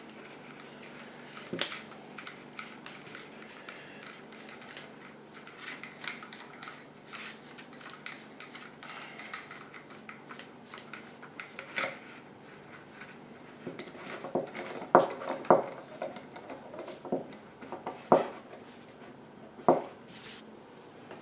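Small metal hardware of an outrigger eye being handled: light clicks and rubbing of metal parts, with a run of sharper clicks in the last third.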